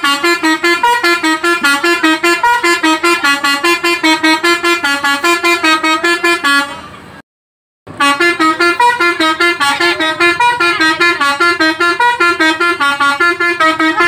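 Telolet bus horn (Alzifa Airhorn V2.0) playing a fast melody of quickly stepping notes. It cuts out for about half a second just past the middle, then starts playing again.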